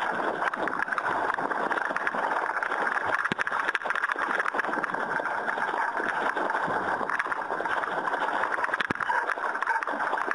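Water rushing and splashing along the hull of a Hurricane 1000 RC sailing yacht under way, picked up close by a camera mounted on its deck, a steady hiss full of small crackling slaps.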